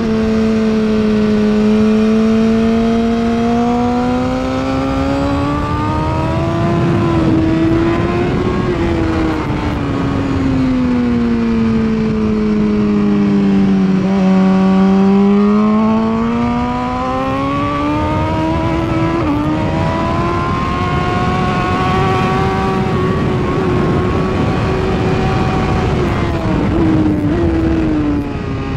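2016 BMW S1000RR's inline-four engine at racing speed, its revs climbing, falling away and climbing again through the lap, with a few quick dips in pitch near the end.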